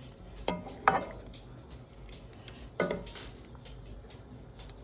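Sauce-coated chicken pieces being stirred in a skillet, with wet squishing and three knocks of the utensil against the pan, which rings briefly: about half a second in, about a second in, and near three seconds.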